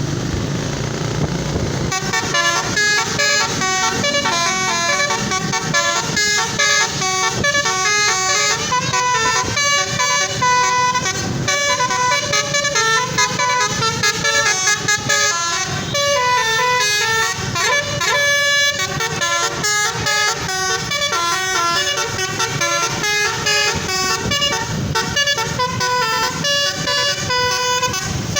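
Tour bus's basuri "telolet" musical horn playing a fast melody of short notes one after another, starting about two seconds in after a stretch of plain wind-like noise.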